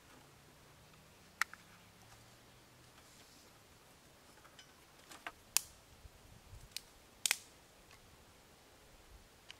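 Dry twigs snapping and crackling as a small kindling fire is lit and the sticks are shifted in a stainless-steel fire pit: a few separate sharp snaps, most of them in the second half, the loudest a double snap near the end.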